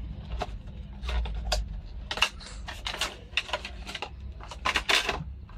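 Hands opening a cardboard product box and sliding the packaged power bank out: irregular clicks, taps and scrapes of cardboard and plastic packaging.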